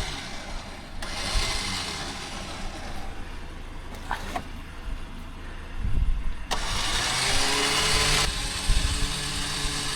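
Vehicle engine running at low revs with a steady low rumble and a few sharp clicks. About six and a half seconds in it gets louder, with a hiss and a slightly rising whine over it.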